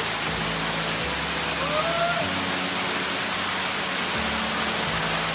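Steady rush of water from a waterfall: an even, unbroken hiss of falling water.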